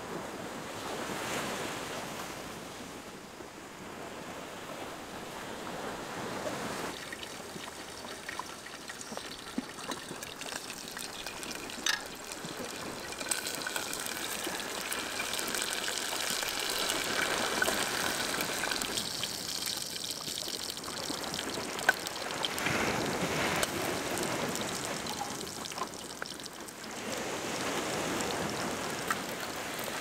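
Sea surf washing up the beach, swelling and ebbing every few seconds, with a few light clicks.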